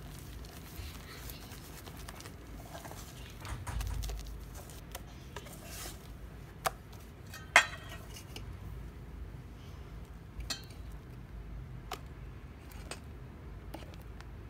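Wire balloon whisk folding meringue into egg-yolk batter in a stainless steel bowl: soft scraping and swishing, with several sharp clinks of the whisk against the bowl, the loudest about seven and a half seconds in.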